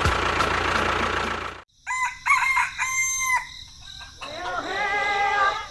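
A rooster crowing, starting about two seconds in right after a sudden cut-off of noise: short rising calls, then one held note.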